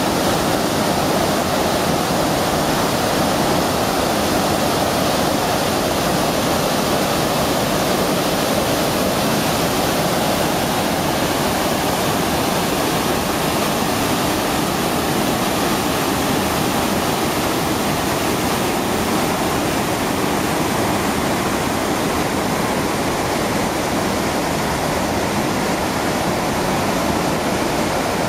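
Waterfall and river rapids in heavy, churning flow: a loud, steady rush of water that doesn't change.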